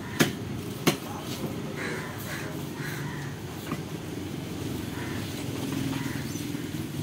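A large fish knife knocks sharply against a wooden chopping block twice near the start, about a second apart, with a few lighter taps later, as it cuts through a fish. Steady background noise runs under it.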